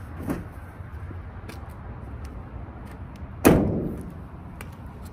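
Cargo van rear doors being shut: a lighter knock near the start, then one loud metal slam about three and a half seconds in that rings briefly as it dies away.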